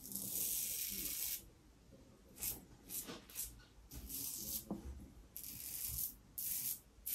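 Double-edge safety razor strokes scraping through lathered stubble. The razor is a YATIP head (Yaqi SRC cap on a Fatip closed comb) with an Astra Stainless blade. A long stroke comes first, then a run of shorter strokes, and the blade sounds strange to the shaver.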